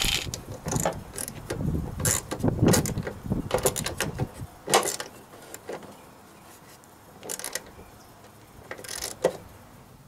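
Irregular metallic clicks and knocks of hand tools on nuts and bolts as the emergency brake pedal assembly is bolted to the body. The clicks come thick and fast for the first few seconds, then thin out to a few single clicks.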